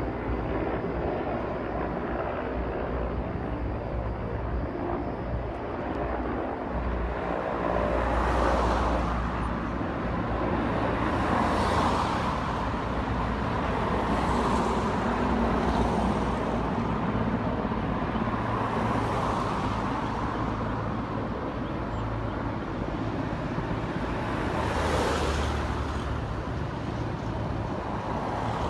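Outdoor field noise of engines: a steady low rumble with about five louder swells that build and fade, like machines passing by.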